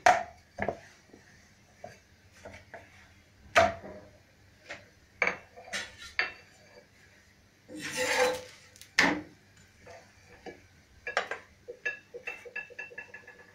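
Kitchen handling sounds from a steel rolling pin and steel rolling board: scattered short knocks, clinks and scrapes, with two longer rubbing scrapes about eight and nine seconds in and a quick run of small ticks near the end.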